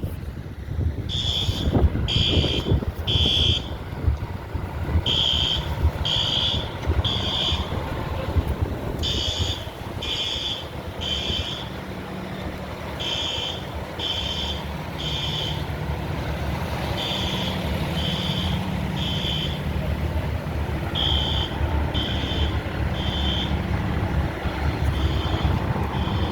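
Building fire alarm sounding the temporal-three evacuation pattern: three high beeps about a second apart, then a pause, the group repeating every four seconds. A truck engine idles steadily underneath.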